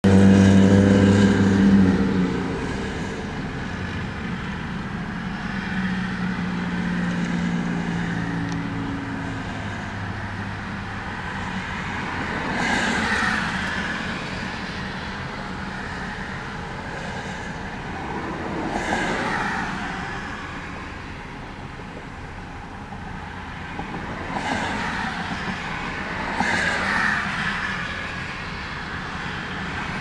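Road traffic: vehicles pass one after another, each swelling up and fading away over a couple of seconds. A low engine hum runs through the first several seconds.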